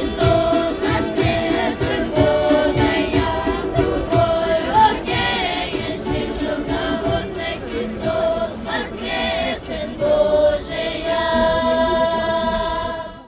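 Orthodox church choir singing a sustained Easter hymn, with long held notes, cutting off abruptly at the end.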